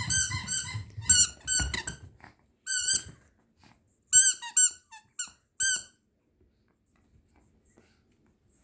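A spitz puppy biting a squeaky toy squirrel. A quick run of squeaks comes first, then single squeaks spaced out, stopping about six seconds in.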